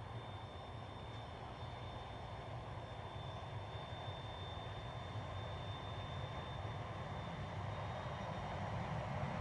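Diesel freight locomotives running, a low engine rumble growing slowly louder as the train draws nearer.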